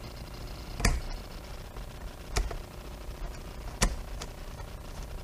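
Three sharp clicks or knocks about a second and a half apart, with a few fainter ticks between, from a screwdriver and the metal throttle body of a Yamaha FJR1300 being handled while the throttle position sensor's screws are driven.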